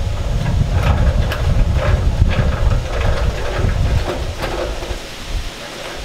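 Wind buffeting the microphone with an unsteady low rumble, mixed with scattered light clicks and rustles.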